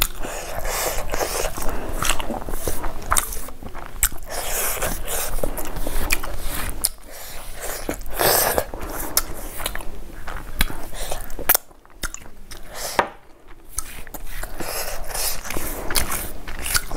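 Close-miked eating sounds of rice and small fish curry: wet chewing, lip smacks and mouth clicks, mixed with fingers gathering rice on a banana leaf. The sound drops away briefly twice about two-thirds of the way through.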